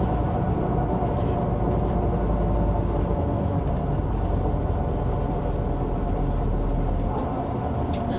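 Diesel engine of a 1998 MAN NG 312 articulated city bus, running steadily as the bus drives, heard on board with a deep rumble and a steady hum. The deepest rumble eases off about seven seconds in.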